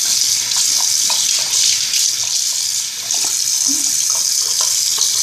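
Bathroom sink tap running steadily, with small splashes of water as a face is washed under it.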